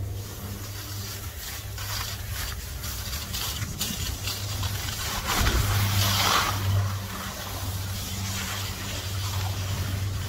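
Skis sliding and scraping over packed snow, with a louder scrape about five to seven seconds in, over a steady low hum.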